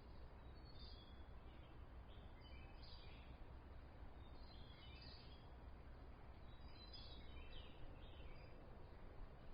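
Faint natural ambience: small birds chirping in short, high bursts every couple of seconds over a steady low background hiss.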